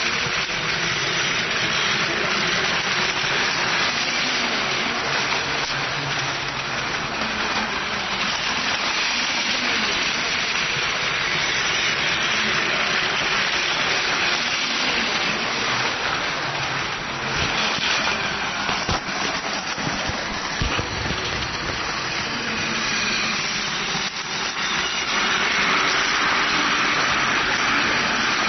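Plarail toy Shinkansen trains running on plastic track: a steady whir from the small battery motors with the rattle of the wheels on the track. There are a few sharp clicks in the middle, and the sound grows louder near the end as a train passes close.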